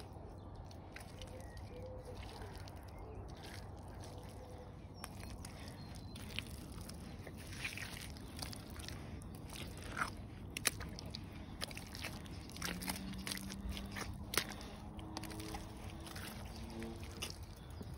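Rubber wellington boots squelching and sloshing through thick, wet mud in irregular footsteps, each boot sinking in and pulling free. Near the end, a low held tone sounds for a few seconds.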